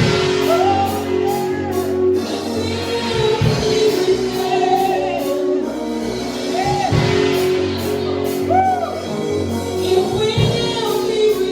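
Gospel worship music: voices singing over sustained instrumental chords.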